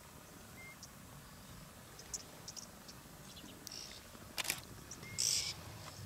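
Outdoor bush ambience: scattered short high chirps and ticks over a faint low rumble, with a sharp click about four and a half seconds in and a brief loud hiss just after five seconds, the loudest sound here.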